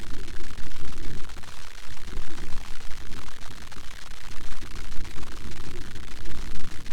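Wind buffeting an outdoor microphone: an uneven, gusting rumble with a steady hiss over it.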